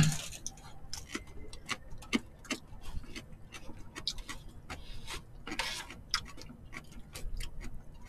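Eating at a table: light, irregular clicks and taps of chopsticks against plastic food containers and dishes, mixed with mouth noises, with a brief louder rustling noise about five and a half seconds in.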